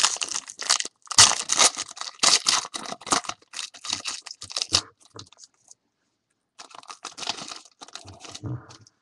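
A trading-card pack wrapper being torn open and crinkled by hand, in a long run of crackling, then a short pause, then another couple of seconds of crinkling.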